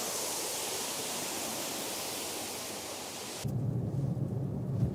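Steady rushing hiss of a wide curtain waterfall, about a 10 m drop of water, which cuts off abruptly about three and a half seconds in and gives way to a low rumble.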